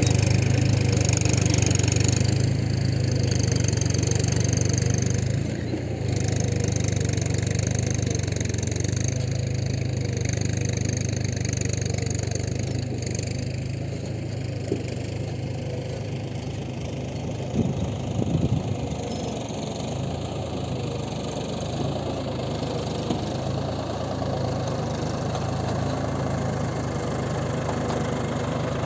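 Mahindra 275 DI tractor's three-cylinder diesel engine running steadily, louder for the first few seconds, then a little quieter. A short burst of clattering knocks comes a little past the middle.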